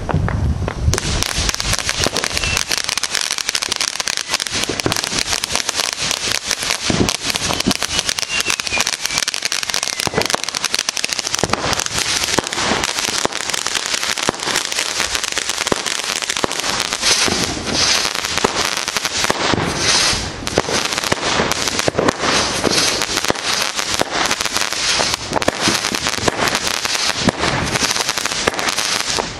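Phantom Fireworks 19-shot Arctic Blast cake firing, starting about a second in: shots and aerial bursts following one another closely, with dense crackling throughout.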